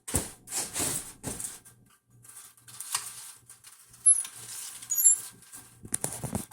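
Irregular rustling and scuffing, heaviest in the first second and a half and sparser after, with a few faint, short high chirps about four and five seconds in.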